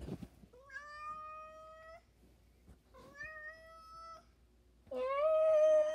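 Domestic cat meowing three times, each a drawn-out meow of about a second, the third the loudest.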